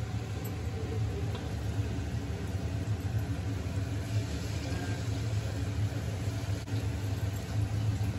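Pua batter deep-frying in a kadai of hot oil: a steady sizzle over a steady low hum.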